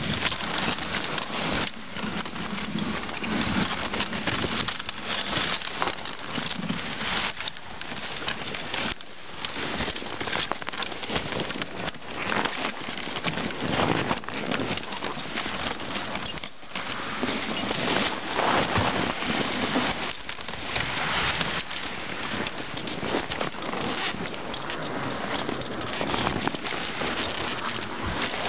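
Dog sled runners sliding and scraping over snow at speed: a steady crunching hiss full of fine crackles.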